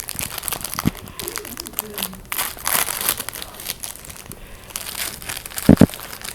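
A crinkly bag or wrapper rustling and crinkling as it is handled or nosed at, with two short thumps close together near the end.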